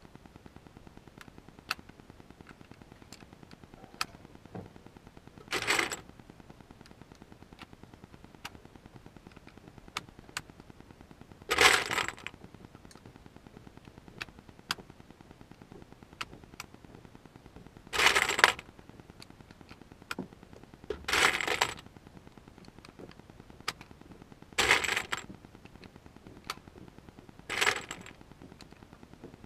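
Short bursts of metallic clinking and rattling, six of them a few seconds apart, with small sharp clicks in between.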